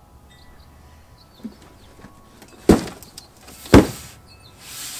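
Two loud thumps about a second apart: hands slapping the top of a large cardboard shipping box. Faint bird chirps can be heard in the background.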